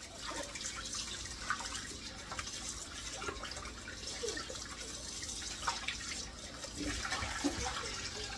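Kitchen faucet running into a metal bowl of raw chicken pieces in a stainless steel sink, with small splashes and light knocks as hands wash the chicken.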